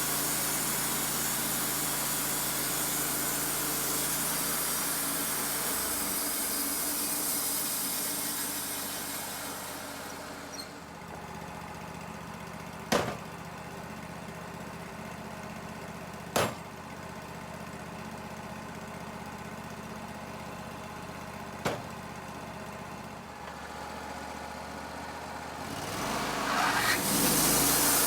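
Wood-Mizer LT35 portable bandsaw mill running, its blade cutting through a cedar log with a loud steady hiss over the engine for about the first ten seconds. Then a quieter stretch of the mill running without cutting, with three sharp clicks, before the cutting noise builds again near the end.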